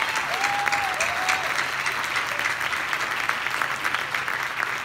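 Large seated audience applauding steadily, with a couple of brief whoops in the first second and a half.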